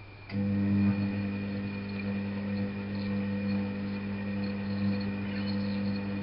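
Drain pump of an Alaska WA8200 E washing machine (a Balay-built Constructa Viva) switching on with a click just after the start, then running with a steady, fairly loud mains-frequency hum. This pump is known to be somewhat loud.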